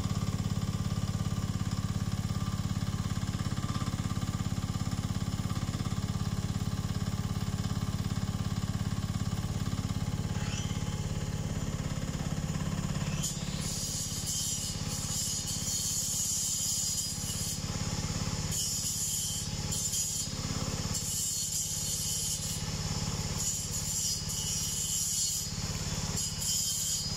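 Carter CT10 one-ton mini excavator's engine running steadily under hydraulic load while the bucket digs gravel. From about halfway, spells of scraping, rushing noise come and go as gravel is scooped and dumped.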